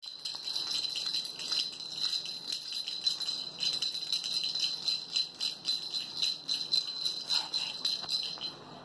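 Small jingle bells shaken quickly and unevenly in a steady run of jingling that stops shortly before the end.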